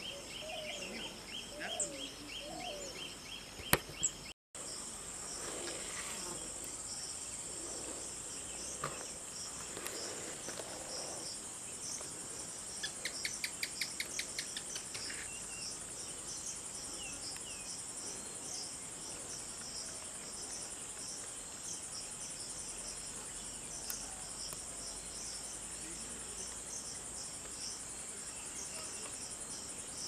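Insects trilling steadily at a high pitch in an orchard, a dense continuous chorus with a fine pulsing texture. A short run of rapid, louder chirps stands out about thirteen seconds in.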